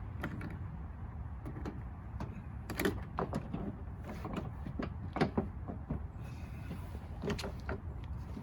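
Plastic interior trim panel being worked onto an SUV liftgate: a scattered series of light knocks and clacks as the panel is pushed and hooked into place.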